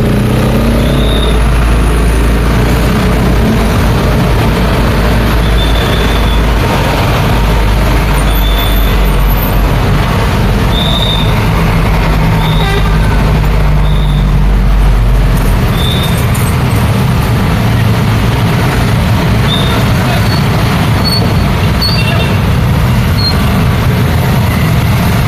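Busy road traffic with heavy vehicles such as trucks and buses passing close by. A deep engine rumble runs for the first fifteen seconds or so and then fades, and short high chirps come and go throughout.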